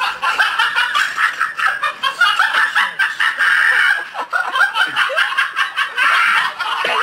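People laughing in quick, high-pitched bursts of giggles and snickers, cutting off abruptly at the end.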